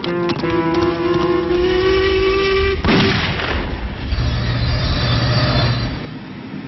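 Cartoon steam-locomotive whistle held for about two and a half seconds, rising slightly in pitch, then a sudden burst of noise and the train running with a low rumble that fades near the end.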